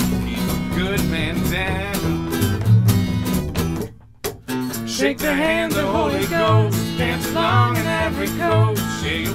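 Live acoustic folk-rock: a man singing over strummed acoustic guitar and upright bass, with a regular percussive beat. About four seconds in the band stops dead for a moment, then comes back in with the singing.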